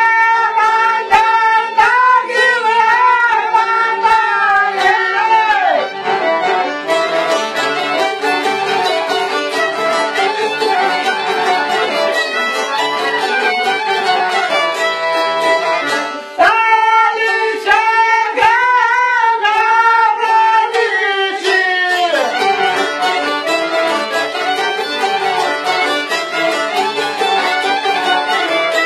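Live Albanian folk music played on an accordion, with a violin-like lead. A long wavering melodic line with vibrato comes in at the start and again about halfway through, over steady accompaniment.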